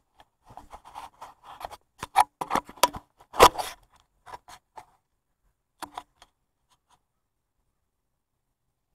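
Scattered clicks, scrapes and knocks of a serpentine belt being worked by hand around the engine's pulleys, the loudest about three and a half seconds in. They stop about six seconds in.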